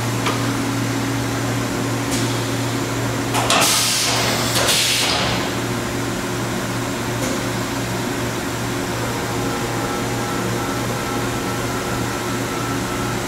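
LK Machinery TC-1200 vertical CNC drill-tap center running its program with a steady hum and a couple of single clicks. A few seconds in, a loud hiss lasts about two seconds.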